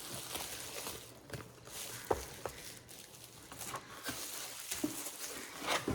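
Faint rustling of packaging as the lamp's small parts are handled, with a few light clicks and taps scattered through.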